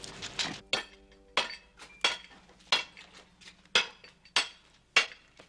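Repeated sharp clinks of a hand tool tapping at the front of a stone-and-clay wood-fired pottery kiln, irregular, about one to two a second, each with a short ring.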